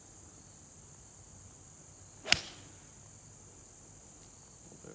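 A single sharp crack of a 6 iron striking a golf ball, a little over two seconds in, over a steady high chirring of insects.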